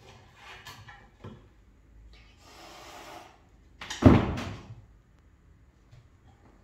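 A single heavy wooden thud as a Savannah cat lands on top of a wooden cabinet, trailing off over about half a second, with a softer rustle a second before it.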